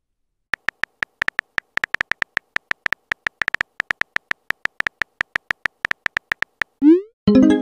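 Keyboard typing sound effect of a texting-story chat app: a rapid, uneven run of short beeping ticks all at one pitch, one per typed letter. Near the end it stops and a quick rising swoop is followed by a brief chiming tone.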